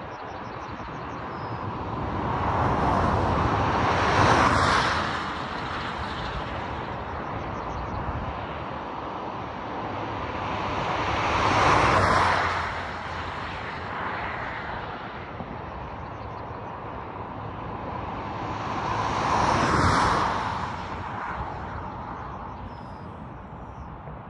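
Three vehicles passing on a highway one after another, each a swell of tyre and engine noise that builds and fades away, about seven to eight seconds apart, over steady road and wind noise.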